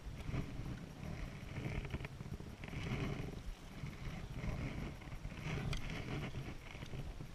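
Paddle strokes through still water: a swish and splash about every second and a half, over a low steady rumble.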